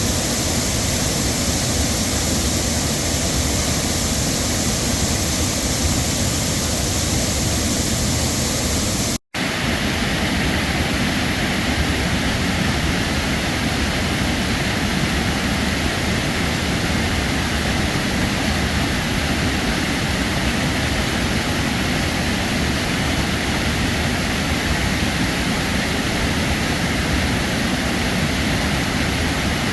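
Heavy waterfall: a steady, dense rush of falling water. It drops out for an instant about nine seconds in, then carries on.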